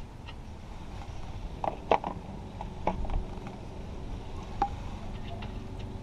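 A few light metallic clinks and knocks from hand tools and parts being handled, one of them ringing briefly, over a low outdoor rumble.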